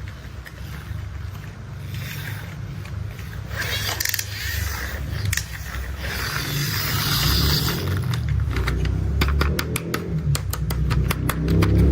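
Low, steady heavy-machinery engine rumble, with bursts of hiss through the middle and a fast run of sharp mechanical clicks in the last few seconds, growing louder toward the end.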